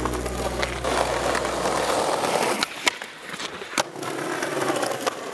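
Skateboard wheels rolling over paving stones, with a few sharp clacks of the board, the loudest about three and about four seconds in.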